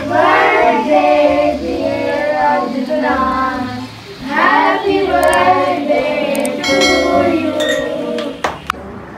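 Group of children singing a birthday song together, in phrases that fade out near the end, followed by a couple of sharp clicks.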